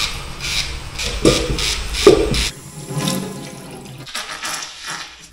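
Cartridge razor scraping through a beard in quick, repeated strokes. About halfway through, a tap runs into a stainless-steel sink as water is splashed onto the face.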